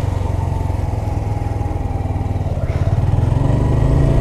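2017 Honda Grom's 125 cc single-cylinder four-stroke engine running in first gear at low speed, its revs rising as the throttle opens about two-thirds of the way through.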